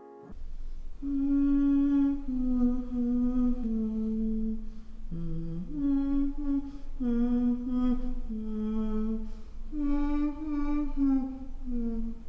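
An elderly woman humming a slow, simple tune, holding one note after another with small slides between them, over a steady low background hum.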